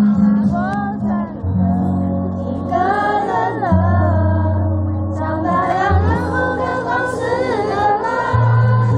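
A woman singing a pop song into a microphone over amplified backing music, with held bass notes that change every second or two beneath her voice.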